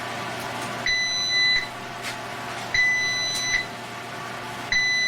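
Electronic beeping from a RecorderGear TR600 call recorder: three identical high beeps, each just under a second long, repeating about every two seconds.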